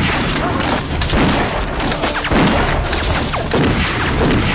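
Film gunfight sound effects: a dense, continuous run of gunshots from pistols and a machine gun, mixed with booming blasts.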